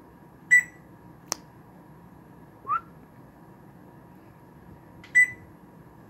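African grey parrot mimicking an electronic beep: two short, high beeps about five seconds apart, with a sharp click and a short rising chirp between them.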